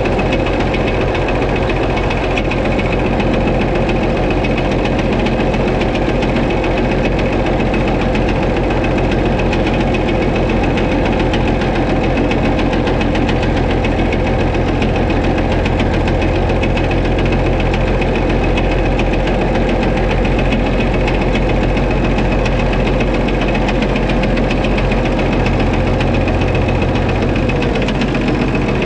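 White 2-155 tractor's Hercules six-cylinder diesel running steadily at idle with a regular knock from inside the engine. Blow-by, exhaust and oil pressure are normal, so the knock is the sign of an internal fault that needs engine work, and the engine sounds to the owner like it is missing slightly.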